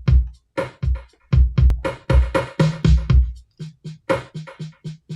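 Drum-machine sounds from a drum app played one hit at a time: deep kicks and sharper snare and hat hits in an uneven, finger-played pattern. From about two and a half seconds in, the hits come quicker and lighter.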